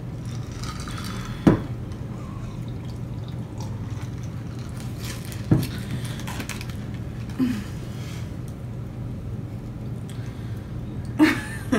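Sipping from drinking glasses, with two sharp knocks of glasses set down on the table, over a steady low hum.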